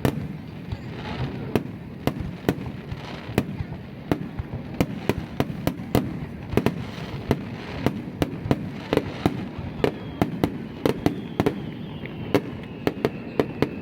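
Aerial fireworks shells bursting in quick succession: a dense, irregular string of sharp bangs, about two or three a second and packing closer together from midway, over a continuous low rumble.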